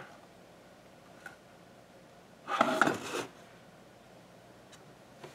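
Hands handling a smartphone and the camera: a click at the start, then a short rustling, rubbing noise about two and a half seconds in.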